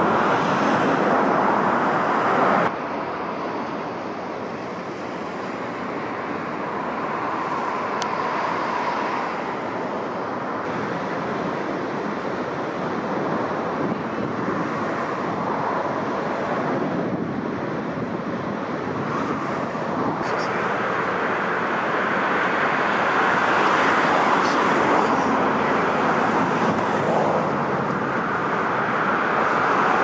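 Strong wind and heavy breaking surf: a steady rushing roar that drops abruptly about three seconds in, then slowly builds again.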